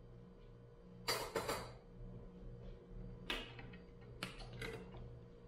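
Plastic bottle of manteiga de garrafa (bottled butter) being opened and handled: a few short clicking and scraping noises, the loudest cluster about a second in, with more around three and four to five seconds in.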